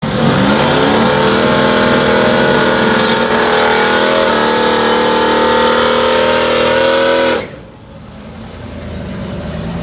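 Chevy S10 drag truck's engine at full throttle, its pitch climbing over the first second and then holding high, with a brief dip about four seconds in. It cuts off suddenly about seven seconds in, leaving a quieter rising rush.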